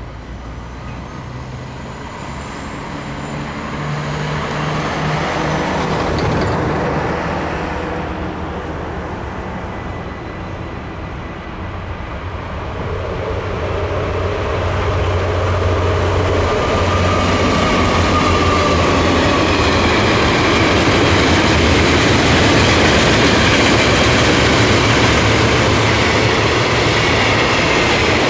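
Railion class 6400 diesel-electric locomotives approach with a low diesel drone that grows louder, then pass at speed. From about halfway through, a short mixed freight train of pipe-laden flat wagons and open wagons rolls by with a loud, steady rumble of wheels on rail. Earlier, an engine hum swells and fades within the first seven seconds.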